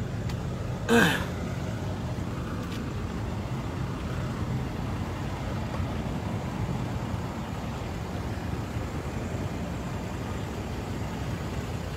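Semi-truck rig idling: a steady low diesel drone.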